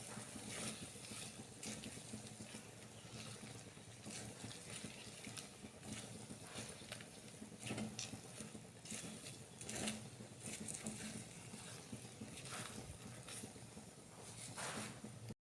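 Faint, scattered clicks and taps of a kitchen utensil against cookware, irregular and a few per second at most, over a low steady hiss.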